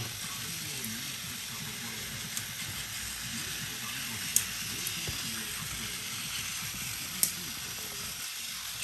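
Steady whirring hiss of a battery-powered Plarail toy train running on its plastic track, with two sharp clicks about four and seven seconds in.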